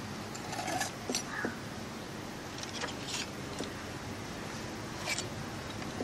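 Hand cutter snipping the sharp corners off a thin sheet-metal strip: short crisp clips about a second in, again around three seconds and once more near five seconds.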